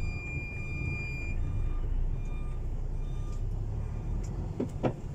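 MAN TGS 21.400 truck's diesel engine running with a steady low rumble, heard from inside the cab as the truck reverses. A high warning tone sounds for about the first second and a half, then faint short beeps repeat a little under once a second: the reverse-gear warning.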